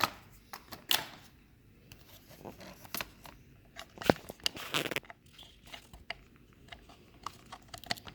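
Scattered clicks, knocks and rustling from handling a work light's cable and plugging it into a portable battery housing, with the sharpest click about four seconds in.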